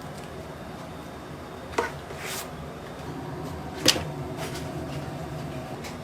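Two sharp knocks about two seconds apart over a steady background hum, with a soft swish between them.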